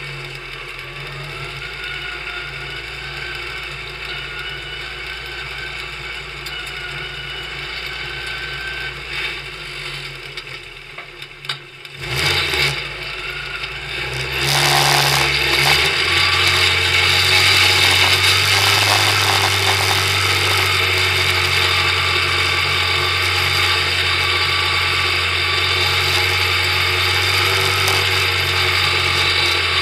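Onboard sound of a small open-wheel oval racing car's engine running steadily, with a lot of rattle from the car and camera mount. About twelve seconds in the engine sound dips briefly, then it comes back louder and stays loud to the end.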